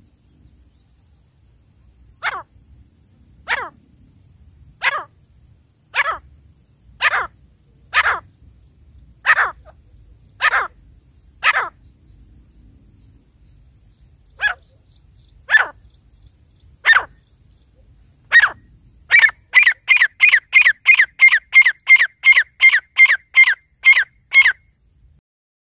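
Grey francolin calling: loud, sharp notes that slide steeply down in pitch, about one a second with a few short pauses, then near the end a fast run of about three notes a second that breaks off abruptly.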